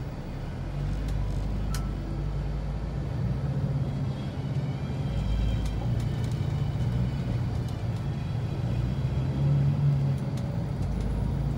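Mercedes-Benz Sprinter 516 CDI minibus's four-cylinder diesel engine and road noise heard from inside the passenger cabin, a steady low hum that grows louder about a second in as the bus drives off.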